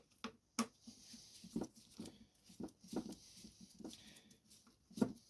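Scattered light clicks and knocks of metal parts being handled: a motorcycle wheel and its brake-disc screws being worked on by hand, with the loudest knocks about half a second and five seconds in.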